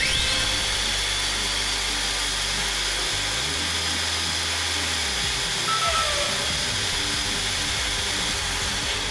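RC touring car's brushed electric motor and drivetrain spinning the test-bench rollers at full throttle through a KO Propo VFS-FR2 Pro ESC. The high whine rises sharply as it spins up, then holds steady at its top speed of about 23 km/h.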